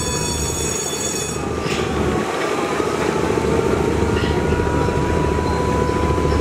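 Heavy, steady rumble of a large river passenger launch's diesel engines under way, with a thin whine held above it.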